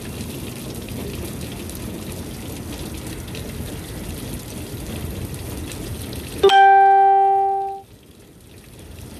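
Water running from a hose onto a fish-cleaning table, a steady splashing hiss. About six and a half seconds in, a loud single-pitched tone cuts in for just over a second and fades, and the background drops out beneath it.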